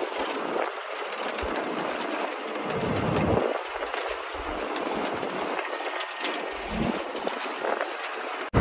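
Cabin noise inside a moving bus on a rough, unpaved road: the body and fittings rattle and clatter, with irregular knocks and thumps from the bumps, over a steady road and engine noise.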